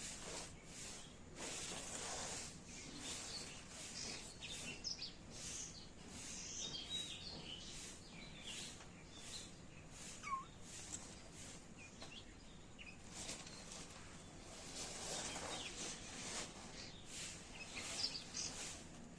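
Faint outdoor background with small birds chirping on and off.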